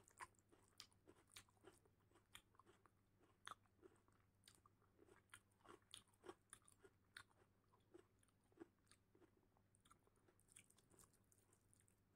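Faint eating sounds of dal and rice eaten by hand: fingers squishing and mixing the wet rice and dal on the plate, and chewing. These come as irregular short, soft clicks and smacks.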